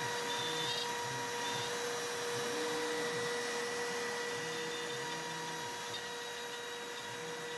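CNC router milling a pocket in a hardwood cutting board: the spindle runs with a steady high tone over the hiss of the end mill cutting the wood. Under it, short low notes step up and down in pitch as the stepper motors drive the axes.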